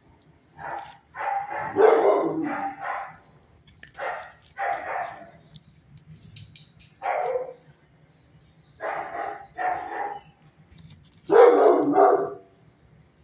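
Dog barking in a shelter kennel: about a dozen sharp barks in uneven runs of one to four, with pauses of a second or two between runs.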